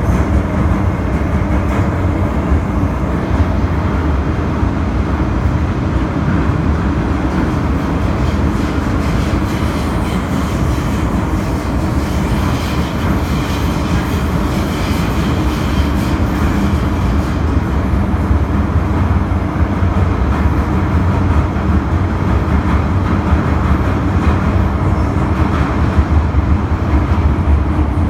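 Inside a Hong Kong MTR Island Line M-Train (Metro-Cammell EMU) car running through a tunnel: a steady, loud rumble of wheels on rail and the train's running gear.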